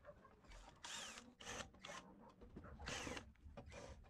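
Cordless drill-driver whirring faintly in several short bursts as it backs the screws out of an amplifier's cover.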